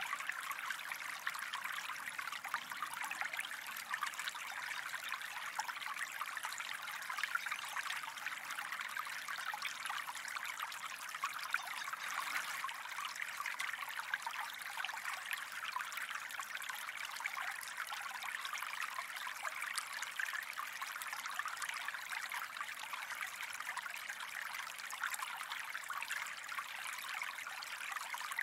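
Gentle stream of water trickling steadily, an even running sound full of small fine splashes.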